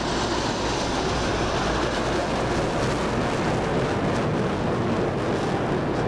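Formation of military jet aircraft flying over, heard as steady jet engine noise with a low rumble.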